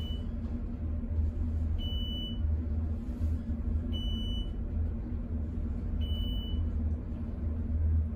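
Elevator car travelling upward: a steady low rumble and hum of the moving car, with a short high beep about every two seconds as it passes each floor.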